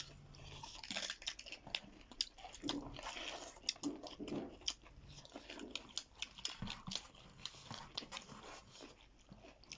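Close-up chewing and biting of food, with many small irregular crunchy clicks and wet mouth sounds.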